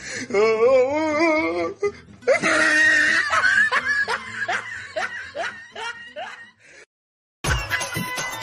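Loud laughter, wavering in pitch at first, then a run of short falling 'ha' notes about two a second. It breaks off about seven seconds in, and after a short gap background music with a beat starts near the end.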